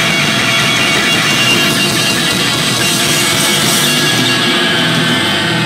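Live harsh noise music: a loud, dense, unbroken wall of distorted sound.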